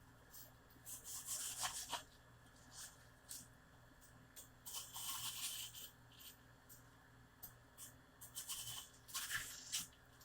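Faint scraping sounds in three short spells, about a second in, midway and near the end.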